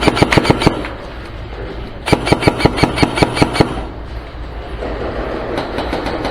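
Airsoft electric rifle firing rapid full-auto bursts: one ending under a second in, another of about a second and a half starting two seconds in, then fainter scattered shots near the end.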